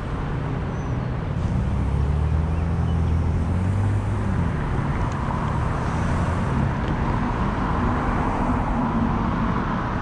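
Road traffic passing close by on a bridge: a steady wash of car tyre and engine noise, with one vehicle's engine hum building about a second and a half in and fading a few seconds later.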